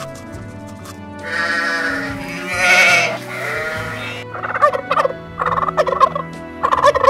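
A sheep bleats, one long wavering call from about a second in. Then a tom turkey gobbles in three short bursts over the last few seconds, over faint background music.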